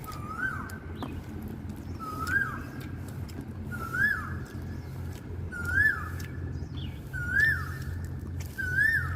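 A bird calling: a short whistled note that rises and drops back, repeated six times at even spacing of just under two seconds. A steady low hum and light clicks sit underneath.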